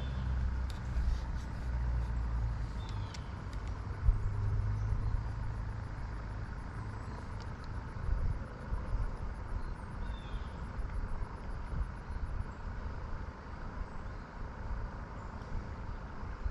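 Low, fluctuating outdoor background rumble with a few faint, short bird chirps.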